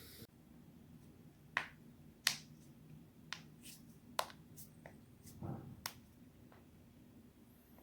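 Human joints cracking: a run of about eight sharp, separate pops spread over several seconds, the loudest two near the start, with a short softer noise about two-thirds of the way through.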